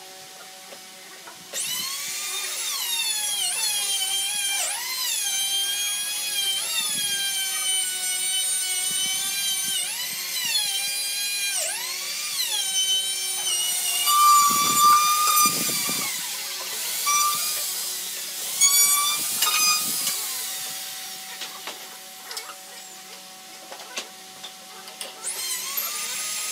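Handheld electric trim router running at high speed on plywood: a shrill whine whose pitch dips sharply and recovers as the bit bites into the edge. It starts about a second and a half in, dies away a few seconds before the end, and spins up again just before the end.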